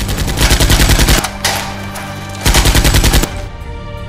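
Automatic gunfire sound effect in two rapid bursts of about a second each, roughly ten shots a second, laid over background music.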